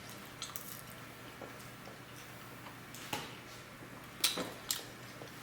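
A few scattered light clicks and taps over quiet room tone, the loudest two about four and a half seconds in.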